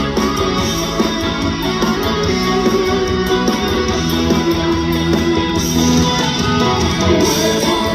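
Live band music with guitar to the fore, playing an instrumental passage without singing.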